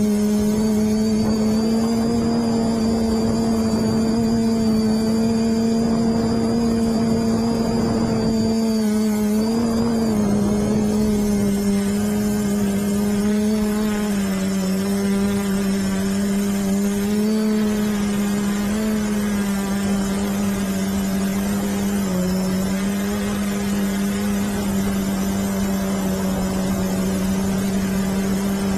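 Quadcopter's electric motors and propellers buzzing steadily in flight, heard close from a camera mounted on the craft. The buzz is one steady pitch that steps down slightly about ten seconds in and dips briefly a few times afterwards.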